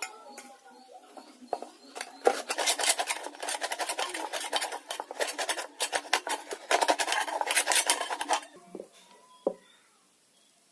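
Thin sheet metal being worked by hand: rapid metallic clicking and scraping for about six seconds, then two single knocks.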